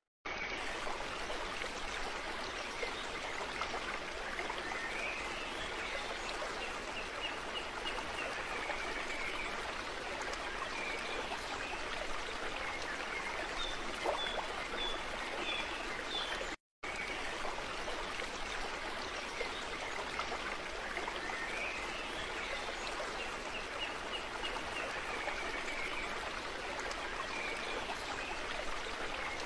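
Steady rushing water of a stream, a looped nature-sound track with faint high chirps now and then. It cuts out for a moment just past halfway and starts again.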